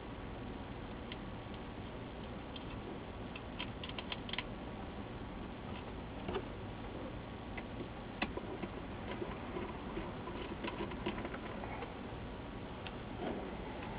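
Scattered light clicks and taps of small screws and sheet-metal monitor parts being handled during reassembly, over a faint steady room hiss. The taps bunch up in a quick run about four seconds in, then come singly every second or two.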